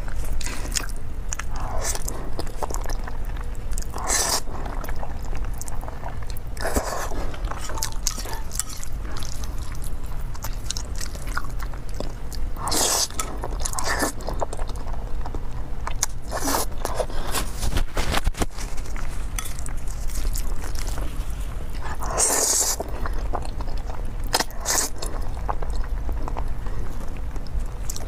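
A person eating cheese fire-chicken instant noodles close to a clip-on microphone: wet chewing, with a louder slurp of noodles every few seconds.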